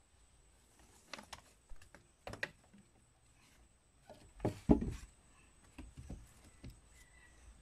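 Wooden poles knocking and rope rustling as a post is set against a log wall and lashed, in scattered irregular knocks, the loudest a pair of thuds a bit past halfway.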